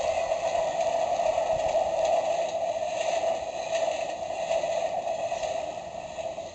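Electronic toy level crossing playing its train sound effect through its small, tinny speaker: a steady, noisy run that fades away near the end.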